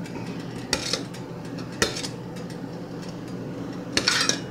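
Metal spoon stirring hot chocolate syrup in a stainless steel saucepan, scraping and clinking against the pot's side and bottom a few times: about a second in, near two seconds, and a quick cluster near the end.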